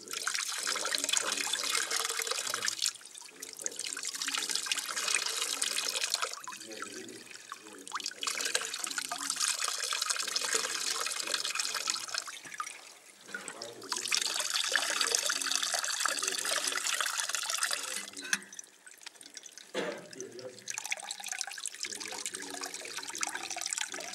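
Wine pouring and splashing as it is racked off its lees by hand, without a pump, in several long spells with short breaks between.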